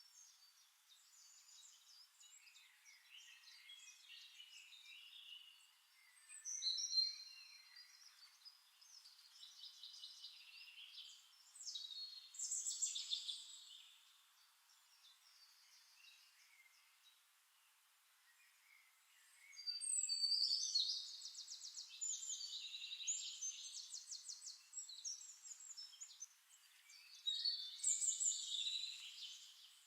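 Birds chirping and singing, several overlapping calls, in bursts of song with quieter gaps between, including rapid trills about two-thirds of the way through and near the end.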